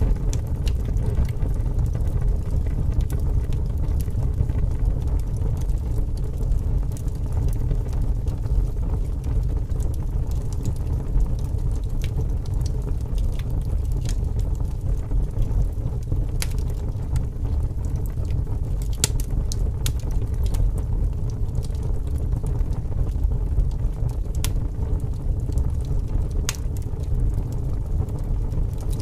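A large fire burning with a steady low rumble, with a few sharp crackles and pops now and then.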